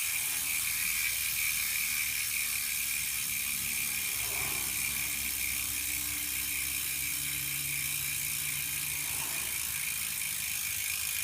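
Hadley SDH rear freehub with 72-point engagement ratcheting steadily as the wheel freewheels on a long spin, its rapid clicks running together into an even, high-pitched whir.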